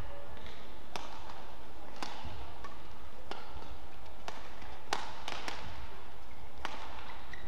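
Badminton rally: rackets striking the shuttlecock in a series of sharp smacks, about one a second, with a quick cluster of three a little past halfway, over the low rumble of the hall.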